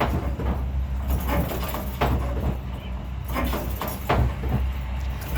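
Irregular hammer blows on hot metal, about two a second, over a steady low machine hum from the smithy.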